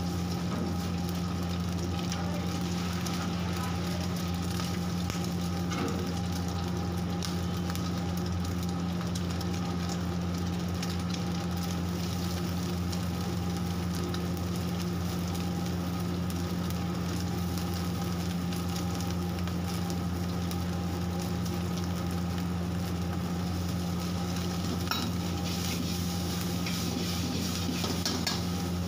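Egg, then sliced onion and shredded vegetables, sizzling in hot oil in a wok while a metal ladle stirs and scrapes, over a steady low hum.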